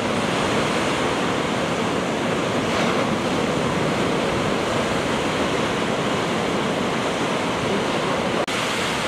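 Ocean surf breaking and washing over volcanic lava rocks: a steady, even rush of water.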